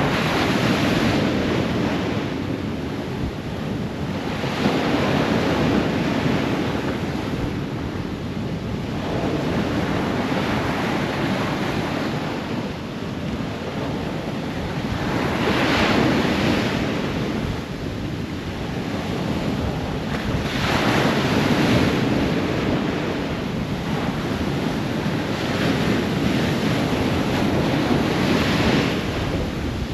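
Ocean surf breaking on a shore in repeated waves, each swelling and washing back about every five seconds, with a few stronger breakers in the middle; wind rumbles on the microphone underneath.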